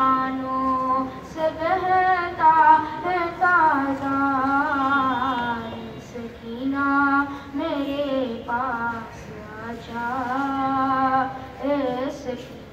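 A solo male voice chanting a marsia, a mourning elegy, unaccompanied, in long held and wavering notes, with short breaks between phrases.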